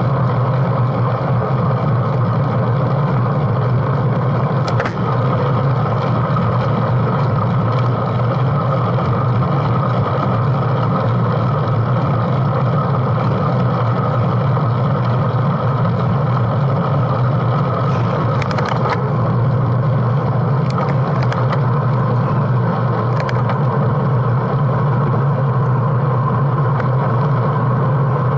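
Steady rush of wind and road noise on a bike-mounted action camera while riding a road bike at speed. A few sharp clicks and rattles come about five seconds in and again between about 18 and 23 seconds.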